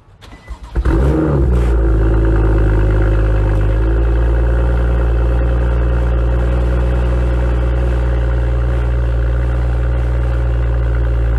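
BMW M2's N55 turbocharged inline-six cold-starting through its M Performance exhaust: it fires about a second in, flares briefly, then settles into a steady fast idle. A metallic vibrating buzz from the loose, misaligned exhaust tips runs over the idle, typical of this exhaust's first seconds after a cold start.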